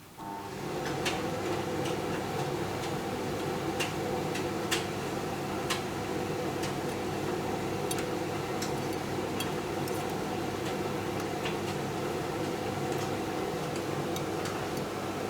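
Hotpoint washing machine or tumble dryer drum starting to turn: a steady motor hum comes up at the start and runs on, with light, irregular clicks scattered through it.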